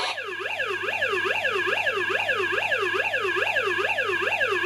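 Battery-powered electronic siren of a Hess toy fire truck, sounding a fast wail that sweeps up and down about three times a second, steady and unbroken.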